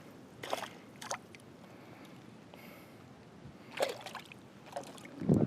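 Water lapping and light splashes against a small boat, with a few short separate sounds over a faint steady hiss.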